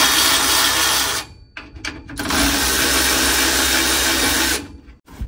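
A power tool runs hard in two bursts of about two seconds each, with a short pause between them, as the truck's old exhaust is being taken off.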